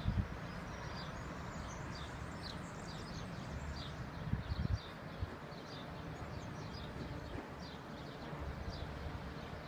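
Small birds chirping, short high downward-sweeping chirps repeating irregularly, over a steady low outdoor rumble, with a few low thumps about four and a half seconds in.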